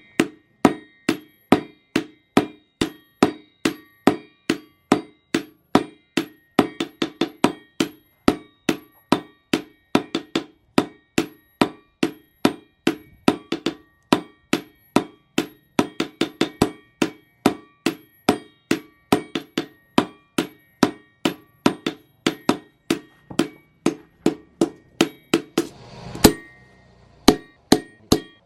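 Hand hammer striking hot steel from a chainsaw bar on an anvil, a steady rhythm of about two to three ringing blows a second while a golok blade is forged. The blows stop briefly near the end, then resume.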